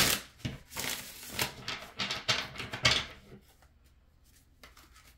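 Tarot cards being shuffled by hand: a rapid rustling, clicking riffle in several bursts over the first three seconds or so, followed by only a few faint taps.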